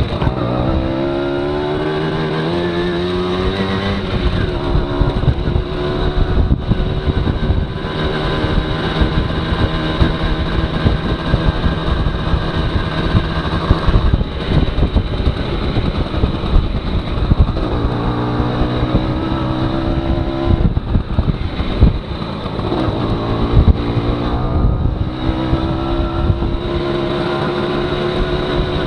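A 1992 Aprilia Classic 50 moped's small two-stroke engine under way. Its pitch rises as it accelerates at the start, again about two-thirds of the way through and near the end, and holds steady while cruising in between, over a rush of wind and road noise.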